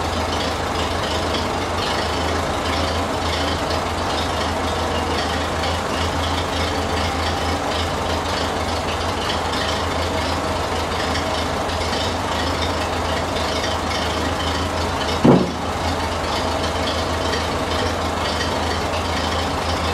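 Ferguson TE20-type tractor engine idling steadily, the engine that drives the hydraulic lift as its control lever is worked. About fifteen seconds in there is one brief, louder sound.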